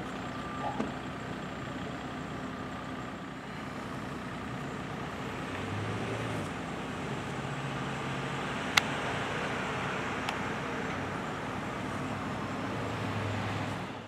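Street traffic: vehicle engines pass with a low hum over steady road noise, and there is one sharp click about nine seconds in.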